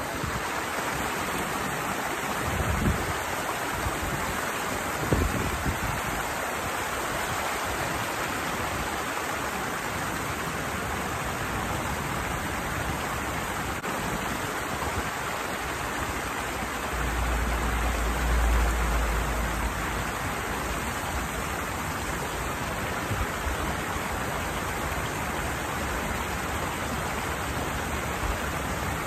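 Water rushing steadily over a small weir-like waterfall on a flowing channel, an even splashing roar. A few brief low thumps come early on the recording, and a low rumble lasts a couple of seconds past the middle.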